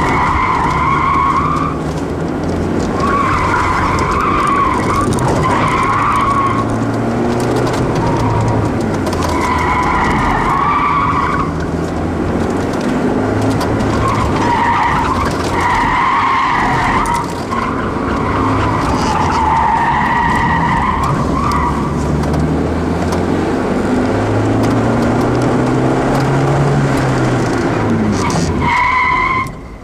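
A stock Ford Escort's engine revving up and down through an autocross run, heard from inside the car, with the tyres squealing in repeated bursts through the cone turns. The noise drops away sharply near the end.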